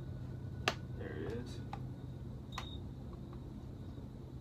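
A few sharp clicks and taps of chainsaw parts and tools being handled during a teardown, the loudest one under a second in. There is a short high beep about two and a half seconds in, over a steady low hum.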